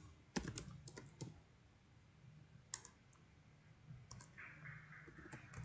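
Faint clicks of a computer keyboard being typed on, in short bursts: a quick run of keystrokes about half a second in, a couple more around the middle, and another run near the end.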